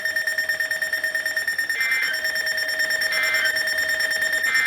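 Electronic alert beeps, three short ones a little over a second apart, over a steady high-pitched tone.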